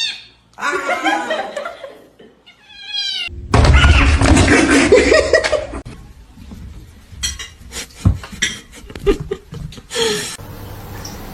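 A cat meowing, then a stretch of loud laughter, then a run of sharp knocks and clicks.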